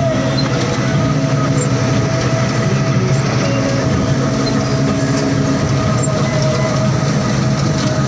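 Combine harvester running while it cuts wheat, heard from the driver's seat: a steady, loud mechanical drone with a constant high whine over it.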